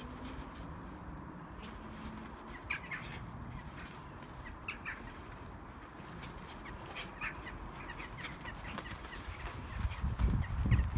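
A beagle and a small white dog playing together on artificial turf, with scattered short, high sounds from their play. Near the end, a run of heavy low thumps close to the microphone.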